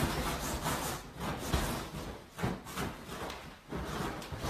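Bedding rustling and the bed frame bumping as a person clambers and flops onto a mattress, in irregular scuffs with a few short thuds.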